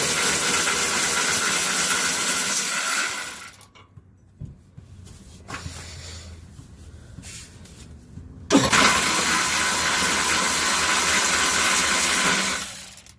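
Air-powered wrench running in two steady bursts of about four seconds each, loosening a bolt on the driveshaft center bearing, with quieter handling of tools and parts between the bursts.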